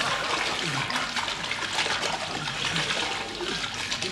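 Water splashing and churning steadily as a fully clothed man thrashes in a swimming pool.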